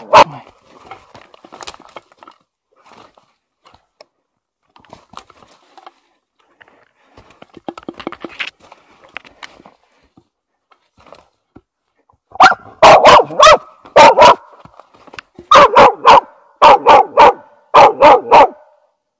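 Russian-European Laika barking in rapid bursts, about three loud barks a second, from about twelve seconds in, after a stretch of only faint rustling. The dog is baying at an animal holed up in a den.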